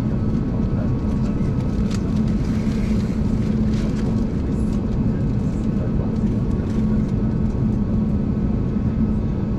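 Steady cabin drone of an Airbus A321neo on the ground, a low hum with a few faint clicks here and there.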